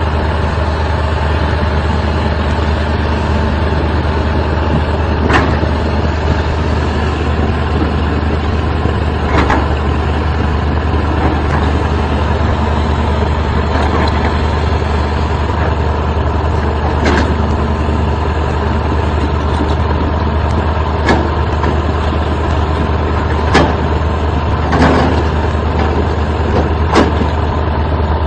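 Excavator's diesel engine running steadily, with a string of short sharp knocks every few seconds over the hum.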